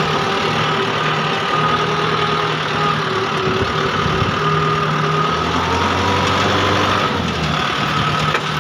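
Farm tractor's diesel engine running steadily, close by, with a low hum that wavers slightly in pitch and strength as the tractor works through the mud.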